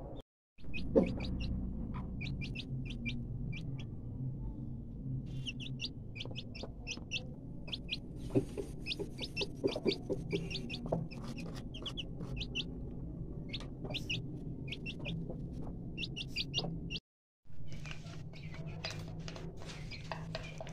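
Chicks peeping in quick runs of short, high calls, over a low steady background, with the sound cutting out briefly twice.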